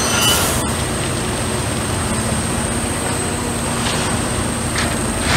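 Steady drone of heavy diesel track machinery: a wheeled excavator swinging its bucket beside a rail tamping machine. A brief high squeal comes just after the start, and short hisses come near the end.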